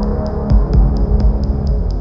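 Background music with a deep bass pulse and a steady fast tick about four times a second.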